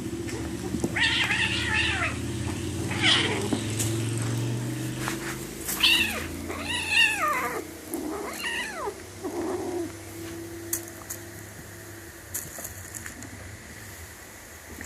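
Kitten meowing about six times in the first two-thirds, several calls high and falling in pitch, over a low steady hum that fades about halfway through; a few faint clicks near the end.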